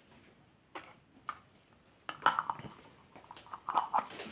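Twist-off lids being screwed onto small glass jars: a few separate clicks and clinks, then from about two seconds in a busier run of scraping and clicking as the lids are turned down onto the jar threads.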